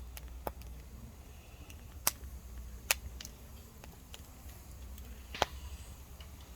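Wood fire crackling: scattered sharp pops with fainter ticks between, the four loudest coming about half a second, two, three and five and a half seconds in.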